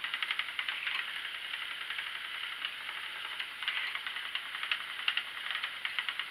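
Schacht Sidekick spinning wheel with a Woolly Winder flyer running while plying yarn: a steady whir with fast, even ticking as the flyer turns.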